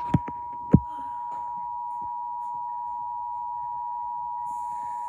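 Emergency Alert System two-tone attention signal: 853 Hz and 960 Hz tones sounding together, held steady. Two sharp clicks come in the first second, and a faint high hiss comes in near the end.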